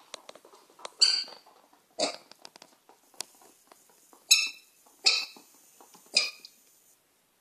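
Micro mini piglet squealing in five short, high calls about a second apart, one of them lower and grunt-like, with light clicks in between.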